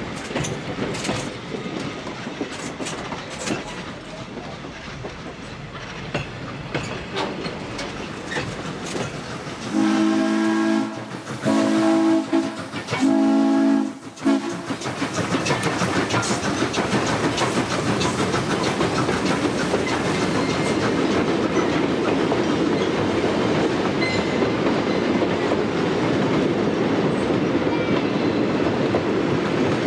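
Frisco 1630, a Baldwin 2-10-0 Decapod steam locomotive, working with irregular clanks and hiss, then blowing its steam whistle in three blasts about ten seconds in. From about fifteen seconds in, its train rolls past with a steady, loud clatter of wheels over the rail joints.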